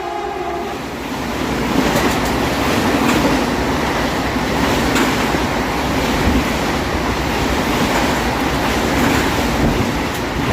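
Express train passing through the station at speed without stopping: a steady, loud rush of coaches and wheels with a few sharp clacks as the wheels cross rail joints. The tail of the locomotive's horn cuts off just under a second in.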